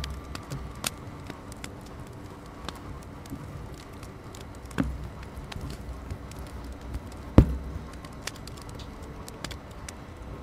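Close-up hand-embroidery sounds: needle and pink embroidery floss pulled through cotton fabric stretched in a wooden hoop while knots are worked, with scattered soft ticks and thumps, the sharpest about seven seconds in.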